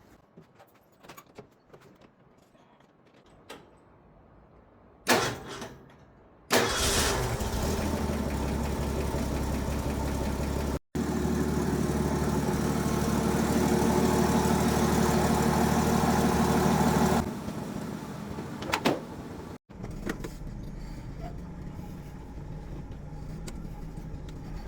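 Ford F100 pickup engine turned over by a newly fitted starter, catching and running. A sharp clunk comes about five seconds in. The engine then runs loudly for about ten seconds and settles to a quieter steady idle, with a couple of abrupt cuts in the sound.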